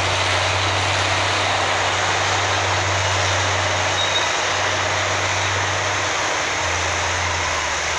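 Diesel engine of a dredging excavator running steadily: a constant low hum under a steady wash of mechanical noise.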